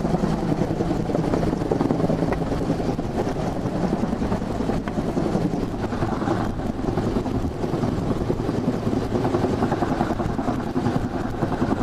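Search-and-rescue helicopter hovering overhead, its rotors and turbine running steadily with a rapid, even rotor beat.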